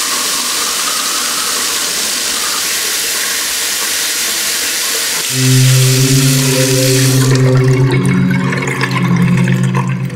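Bathroom tap left running into the sink during tooth-brushing: a steady rush of water that thins out about seven seconds in. About halfway through, a loud low steady hum joins it and steps up in pitch once near the end.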